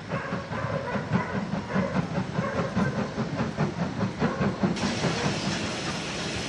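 LMS Ivatt Class 2 2-6-2 tank engine 41241 working steam as it approaches, its exhaust beating in a quick, even rhythm. About five seconds in the beats give way to a steady hiss.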